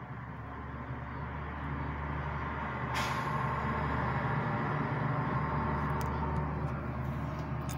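Strong wind gusts with heavy rain: a rushing noise that swells and stays loud through the middle, with a sudden hiss about three seconds in.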